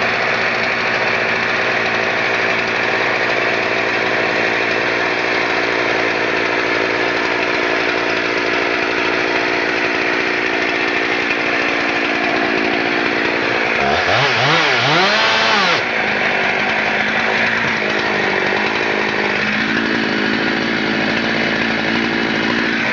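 Husqvarna 372 XPW two-stroke chainsaw running steadily, revved in a few quick throttle blips about two-thirds of the way through, then settling back to a steady run.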